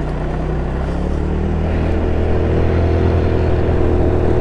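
GY6 scooter's single-cylinder four-stroke engine running while riding, getting steadily louder as it pulls away.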